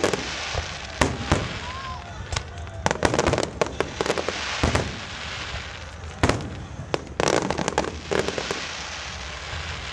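Fireworks display: aerial shells and effects going off in a rapid, uneven series of bangs and cracks, in clusters, over a steady hiss.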